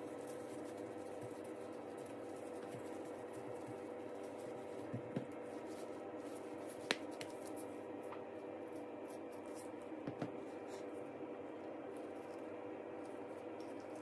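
Faint handling noise from gloved hands pressing and spreading rice on a nori sheet, with a few light taps, over a steady low hum.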